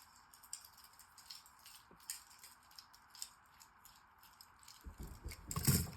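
Faint scattered clicks and light rattles of a plastic Thomas the Tank Engine toy being handled, with a louder bump and low rumble near the end.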